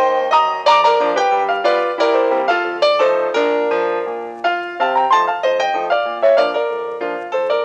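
Background piano music: a light tune of quick notes, several to the second.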